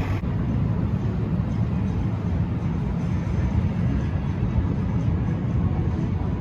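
Steady low rumble of road traffic, a continuous noisy drone with no single distinct event.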